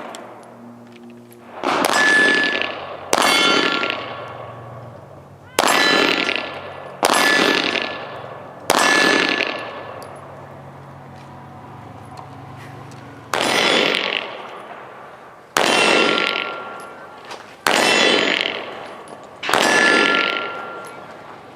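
Pistol shots fired one at a time in a slow, deliberate string: nine shots spaced one to four seconds apart, each with a long echoing tail.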